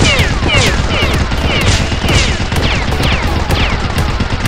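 Rapid-fire gunfire sound effects: a dense, continuous clatter of shots with a falling-pitch zap about twice a second.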